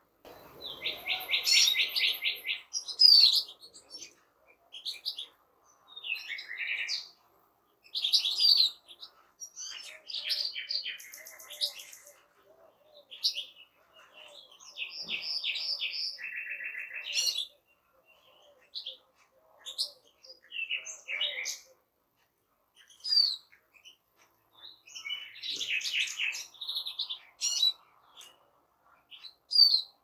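Chorus of finches (European goldfinch, European greenfinch and Eurasian siskin) singing: twittering chirps and rapid rattling trills in bursts with short pauses between.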